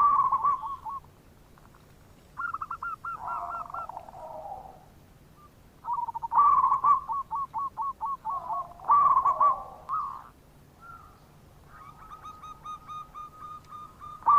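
Zebra doves cooing: several bouts of quick, staccato coo notes that run into a lower rolling coo, with short pauses between bouts.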